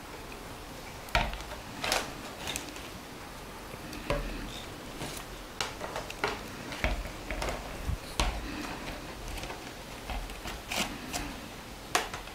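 Willow rods being woven around a wooden basket frame: irregular clicks, taps and light rustling as the rods are threaded over and under and pulled tight, with a few sharper knocks of wood on wood, one about a second in and one near the end.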